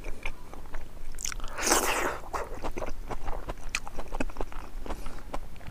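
A person chewing a mouthful of boiled greens and rice close to a clip-on microphone: wet mouth smacks and small clicks, with a louder noisy moment about two seconds in.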